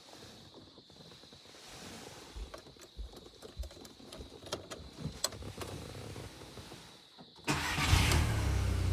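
A few faint clicks and light handling noise, then about seven and a half seconds in the 2001 Audi TT's engine is cranked and starts, a sudden loud rumble.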